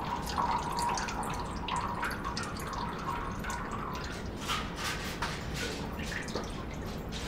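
Water draining off a sheet of soaked printmaking paper held up over a steel sink, drops dripping and spattering into the basin. The drops come thicker in the second half.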